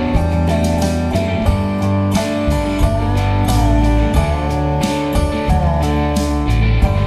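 Background music: a guitar-led track with a steady bass line and bending guitar notes.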